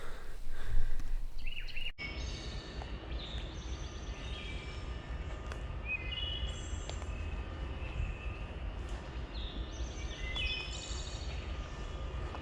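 Several songbirds singing in a morning chorus: many short chirped and trilled phrases overlapping, over a steady low rumble. A brief loud knock or handling noise comes about a second in.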